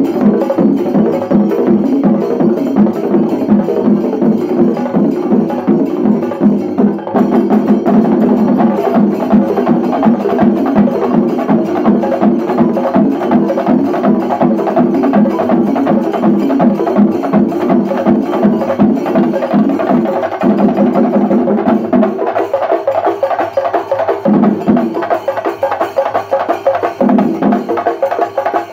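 Shinkari melam: a group of Kerala chenda drums beaten with sticks in a fast, dense, driving rhythm. From about 22 seconds in, the deeper drum tone drops out and comes back in short spells.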